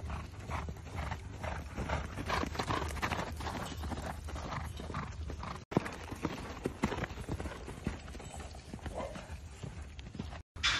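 Hoofbeats of a horse running on a sand arena, a quick uneven drumming of hoof strikes over a steady low rumble. The sound cuts out for a moment about halfway through and again near the end.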